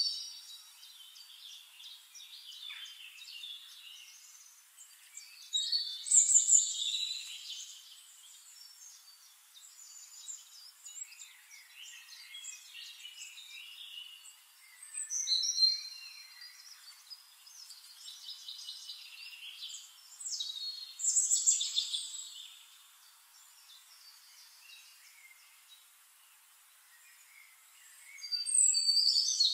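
Songbirds singing in woodland: phrases of high chirps, trills and quick whistled glides that swell every six or seven seconds over a faint hiss, with no low sound at all.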